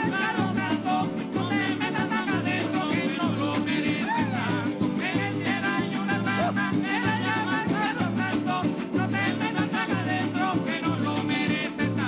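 Traditional Venezuelan folk ensemble playing live. A hand drum beats a steady pulse about once a second under violin, cuatro and guitar.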